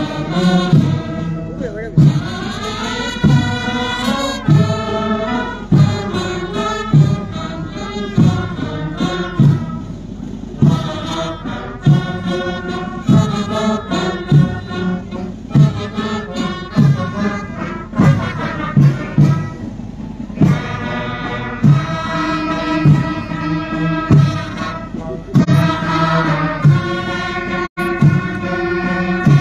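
Music: a group of voices singing over a steady drum beat of about one stroke a second.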